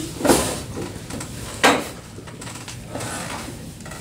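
Handling noise at a table: two sharp knocks and scuffs, about a third of a second and a second and a half in, of cups being set down and chairs shifting, over low room noise.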